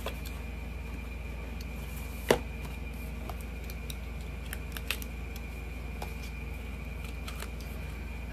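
Scattered small clicks and taps of plastic makeup packaging being handled, with one sharper click about two seconds in, over a steady low hum and a faint high whine.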